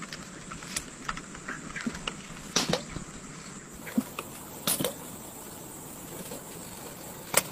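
A few short, sharp clicks and swishes from fishing tackle being handled in a small boat, a spinning reel and rod, over a faint steady hiss. The clearest come about two and a half seconds in, about five seconds in and near the end.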